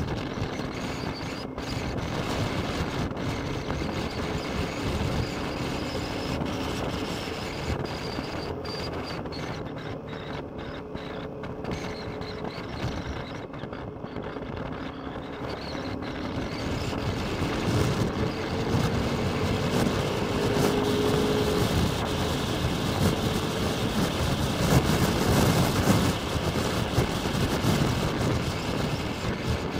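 Honda CX500's water-cooled V-twin engine running under way, with wind noise on the microphone. A bit over halfway through the engine note rises and grows louder as the bike accelerates.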